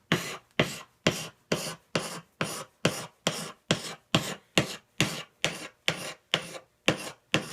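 Hand sharpening stone stroked over and over along the edge of a steel lathe turning tool, a scraping rasp about twice a second, each stroke sharp at the start and fading quickly.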